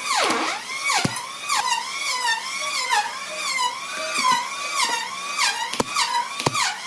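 High-speed electric power tool running under load, its whine dipping in pitch and recovering again and again as it bites and eases off, with a few sharp clicks.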